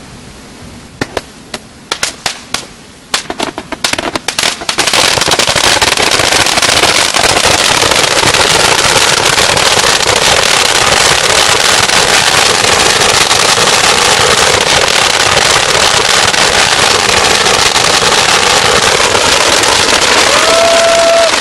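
Firecrackers going off: a few separate sharp bangs over the first few seconds, then from about five seconds a dense, loud, continuous crackling barrage. A brief whistle tone sounds near the end.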